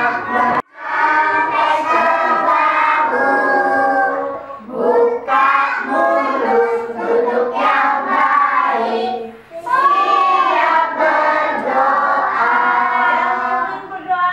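A group of young children singing together, with brief breaks between lines.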